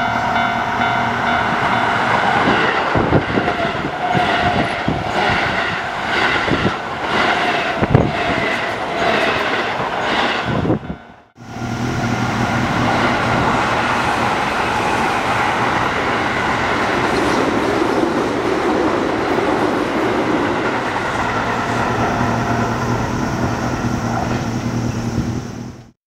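Japanese level-crossing alarm bells ringing in a steady repeating rhythm as a commuter train approaches and passes. After a short break about eleven seconds in, a Keio Line electric train runs past, its steady running noise and low motor hum filling the rest.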